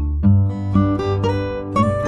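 Background music: acoustic guitar picking a run of notes.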